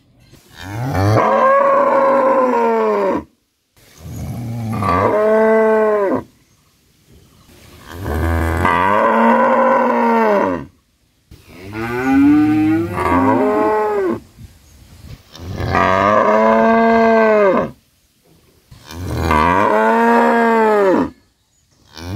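Cows mooing loudly: about six long moos in a row, each two to three seconds long, rising and then falling in pitch, with short silent gaps between them.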